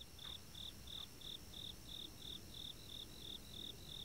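A cricket chirping in a steady, even rhythm, about three short chirps a second, faint against a low background hiss.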